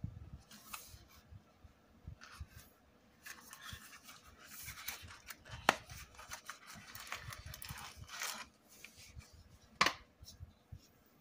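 Cardboard knife box being opened by hand: rustling and scraping of the cardboard and packaging, with a sharp click about halfway and a louder one near the end as the folding knife is taken out.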